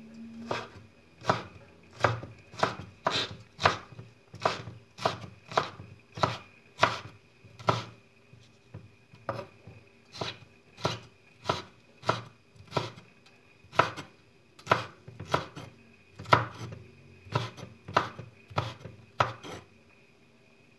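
Kitchen knife slicing a green pepper on a wooden cutting board: a steady run of crisp knocks, about two a second, with one short pause midway.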